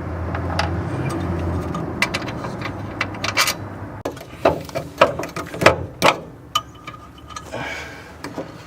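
Small metal hand tools clinking and tapping, with a quick run of sharp clicks in the middle, during work with an Allen key on bolts under a car's dash. A low rumbling handling noise comes before the clicks.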